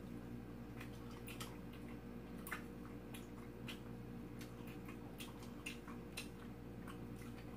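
Quiet eating sounds from someone chewing tteokbokki: scattered, irregular soft clicks from the mouth and chopsticks, over a steady low hum.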